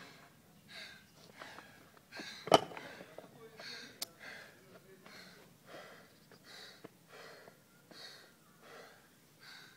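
A lifter breathing hard between barbell lifts, short puffing breaths about every second. About two and a half seconds in, a single sharp clank as he handles the loaded barbell and its plates.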